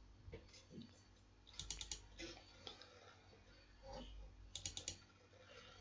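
Faint computer mouse clicking, mostly near silence. There are two quick clusters of clicks, one about one and a half seconds in and one near five seconds: double-clicks opening a folder and then a file.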